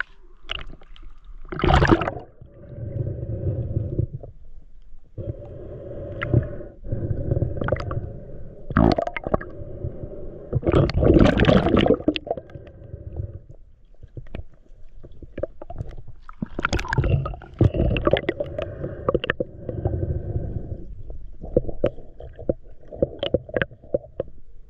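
Muffled underwater sound picked up by a camera in a waterproof housing while a freediver works the lake bottom: low rumbling and gurgling with scattered knocks and scrapes, and a few louder swells of water rushing past.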